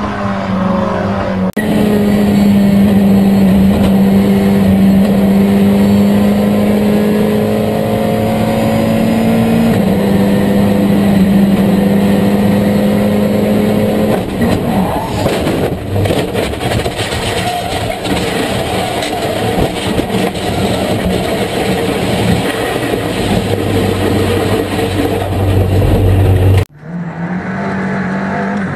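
Race car engines heard from inside the cockpit, running hard and fairly steadily at high revs. The engine sound changes abruptly about a second and a half in and again near the end.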